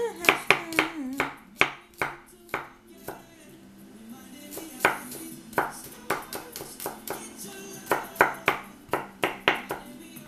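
Chef's knife chopping garlic on a wooden cutting board: quick, irregular knocks of the blade on the wood in a close run, a few single strokes in the middle, then another quick run near the end. Background music plays underneath.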